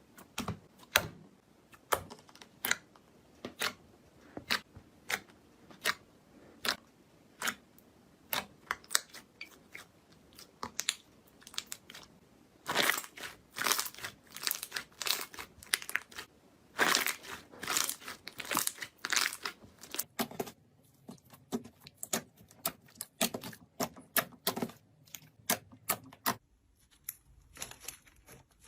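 Slime being squeezed and poked by hand, giving sharp clicking pops about once or twice a second, with a denser run of crackling in the middle.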